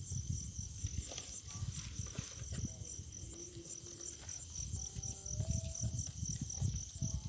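Crickets chirping in a steady, evenly pulsed high trill, under louder low rustling and knocks of handling noise as the phone is held close among the grass.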